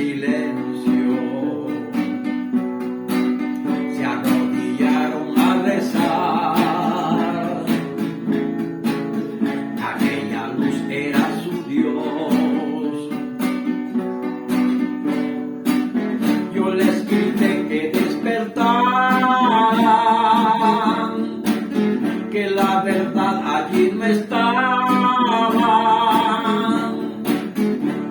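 Background music of plucked and strummed acoustic guitar, joined by a wavering, sustained melody line about two-thirds of the way in.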